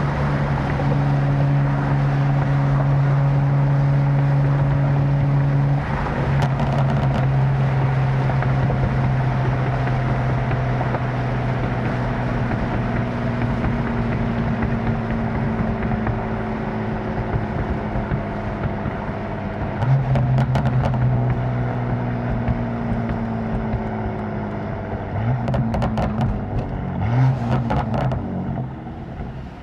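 Tuned BMW M4 engine and exhaust under way, heard from the cabin with the windows down. The note holds steady, drops about six seconds in, then sinks slowly through the middle. Short crackles and pops from the exhaust come around twenty seconds in and again a few seconds before the end.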